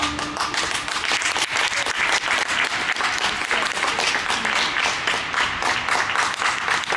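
Audience applauding, many people clapping at once, holding a steady level.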